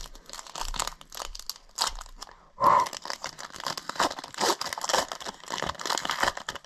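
Foil wrapper of a Metal Universe hockey card pack being torn open and crinkled in the hands, with a stretch of crackling that is loudest about two and a half seconds in.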